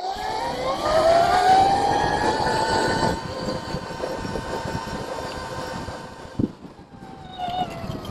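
OSET 24R electric trials bike's motor whining as it pulls away, the pitch rising over the first second and a half and then holding, over a low rumble of wind and bumps on the bike-mounted mic. The whine eases off and fades, with a single knock about six and a half seconds in.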